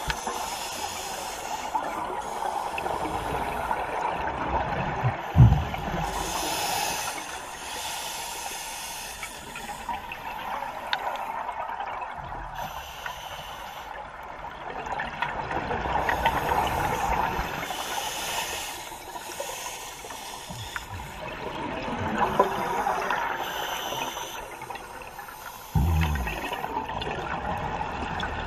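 Scuba diver breathing through a regulator, heard underwater: a steady hiss with a gush of exhaust bubbles about every five or six seconds, and a couple of low thumps about five seconds in and near the end.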